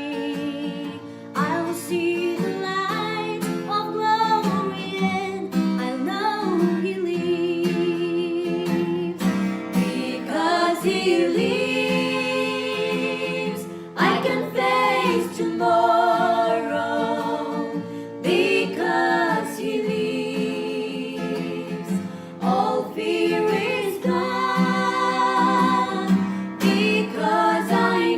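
Vocal trio singing held, wavering notes in harmony over a steady guitar accompaniment.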